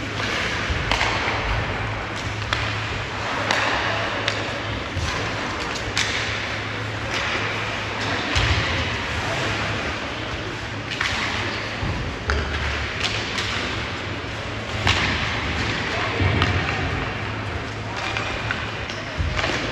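Ice hockey play in a rink: repeated sharp thuds and clacks of puck, sticks and players hitting the boards, over a steady wash of skating and arena noise with a low hum.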